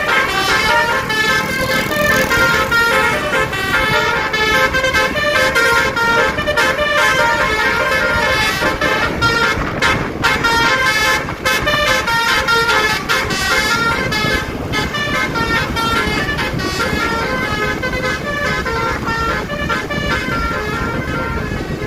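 Bus "basuri" musical horn playing a tune, its notes changing pitch in quick steps throughout, over the noise of passing traffic.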